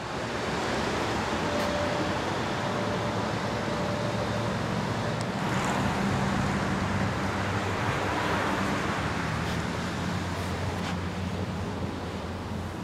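Mercedes-AMG GLA45's turbocharged 2.0-litre four-cylinder engine idling steadily, with a low hum and a hiss over it.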